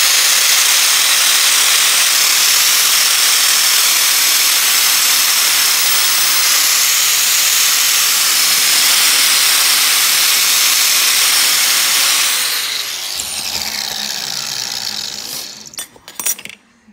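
Electric grinder grinding the edges of a scrap-steel bracket: a loud, steady grinding that lasts about twelve seconds. The motor then spins down with falling pitch, and a few sharp knocks come near the end.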